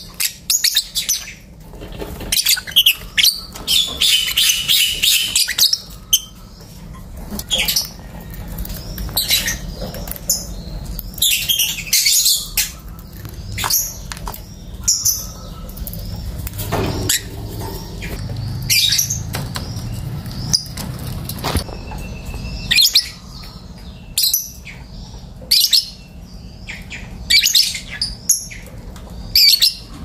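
Caged lovebirds chattering: a run of sharp, high chirps and short screeches, coming in quick clusters with brief quieter gaps between.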